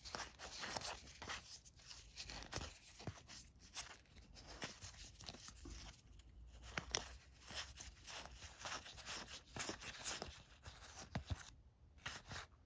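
Stiff game cards being leafed through by hand, sliding and flicking against each other in quiet, irregular scrapes and light clicks.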